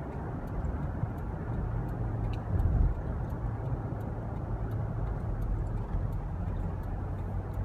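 Road and engine noise of a moving car heard from inside the cabin: a steady rumble with a low hum. A brief louder bump a little under three seconds in.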